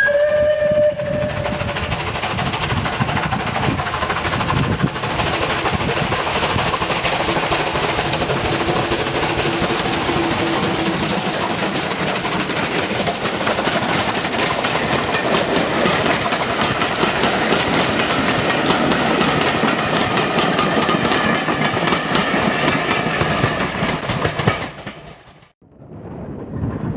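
A steam locomotive's whistle ends about a second in. Then a train of passenger coaches runs past at close range, its wheels clicking over the rail joints. The sound fades and cuts out briefly near the end, then a train is heard running again.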